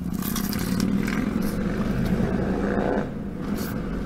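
Crunching bite and chewing of extra-crispy fried chicken close to the microphone, louder for about the first three seconds, over the steady low hum of an idling car.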